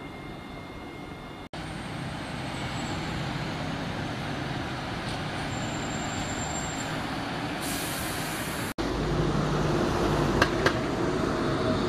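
Single-decker bus running in street traffic, with a brief hiss of air brakes lasting about a second. Then a light-rail tram rolls round a curved track, with two sharp clicks from its wheels.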